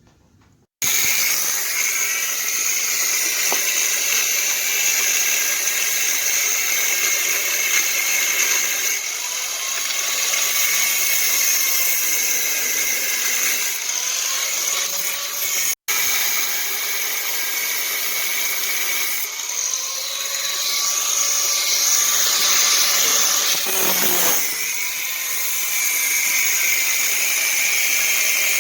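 Power grinder working a steel axle shaft: a loud, steady high whine and grinding hiss. The motor's pitch sags and recovers several times as it is pressed into the metal. The sound cuts off for an instant about halfway through.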